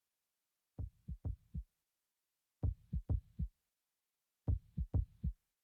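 Heartbeat sounds: three clusters of four short, low thumps, about two seconds apart, the first cluster softer than the other two.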